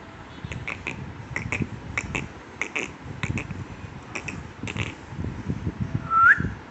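Husky puppy moving about with irregular soft clicks and taps, then one short, high, rising whimper near the end.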